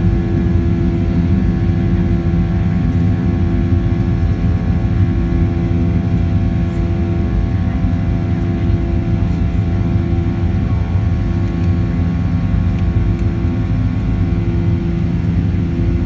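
Boeing 737-800's CFM56-7B turbofan engines at takeoff power, heard from inside the cabin: a loud, steady rumble with the engines' buzzsaw drone of several held tones over it.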